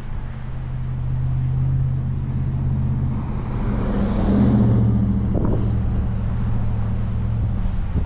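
Strong winter wind rushing, over a steady low engine hum. The rush swells louder about four to five seconds in, then eases back.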